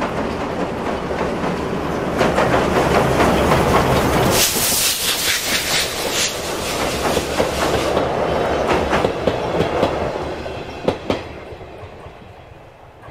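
Steam-hauled passenger train, the C10 tank locomotive running bunker-first with its coaches, crossing a steel girder bridge: a loud rumble of wheels with clickety-clack over the rail joints, loudest a few seconds in, then fading away near the end as the last coach passes.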